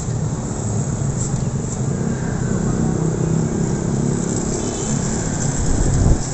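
Street traffic: the engines of bajaj auto rickshaws and motorcycles running, a steady low rumble that swells briefly near the end.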